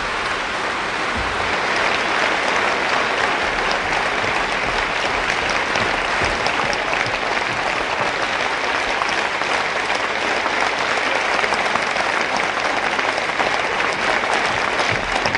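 Audience applauding steadily after a stage song, a dense, even clapping with no music under it.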